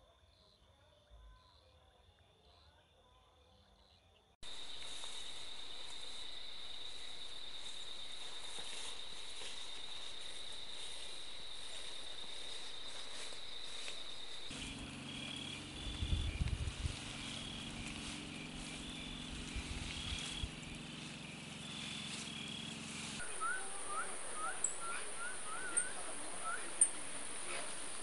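Night insects trilling: faint at first, then a loud, steady, high trill comes in abruptly a few seconds in. About halfway the trill becomes broken and pulsed over a low hum with a few low thumps. Near the end it gives way to short, quick bird chirps.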